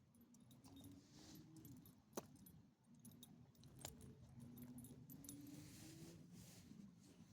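Faint jingling of small metal pieces, with two sharp clicks about two and four seconds in. Under it is a faint low tone that rises slowly in pitch twice.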